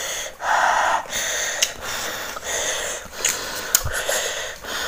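A person breathing hard through the mouth, hissing air in and out in repeated drawn-out breaths against the burn of a very hot chili sambal, with a few small clicks in between.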